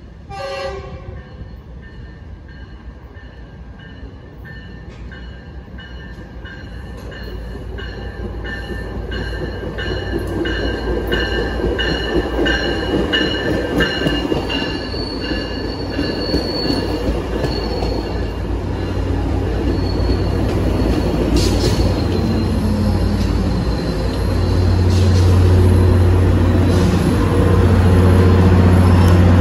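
Tri-Rail push-pull commuter train arriving at a station platform: a brief falling tone right at the start, then the bilevel coaches rolling past with steady high wheel and brake squeal. The diesel locomotive at the rear comes alongside near the end with a strong low engine hum, and the train grows louder throughout.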